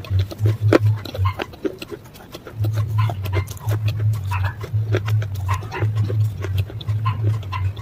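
Close-miked chewing of slate pencil: a fast, irregular run of crisp crunches and cracks over low mouth thuds, easing off briefly about a second and a half in.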